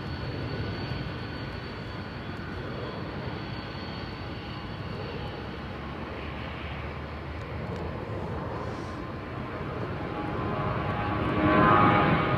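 Jet airliner engines: a steady distant rumble that grows louder near the end, with a rising engine whine as the jet draws closer.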